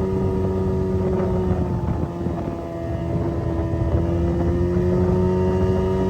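Small boat's outboard motor running under way, steady, its pitch sagging a little about two seconds in and climbing back up.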